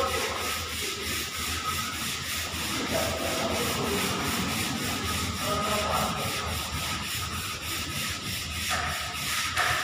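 Sandpaper rubbed by hand over a puttied wall in steady, repeated strokes.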